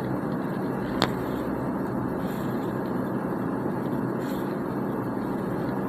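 Steady background noise, an even hiss and hum, with one brief click about a second in.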